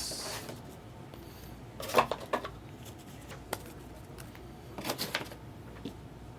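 Trading cards being handled on a table: a short rustle at the start, then small clicks and taps twice, about two seconds in and again about five seconds in.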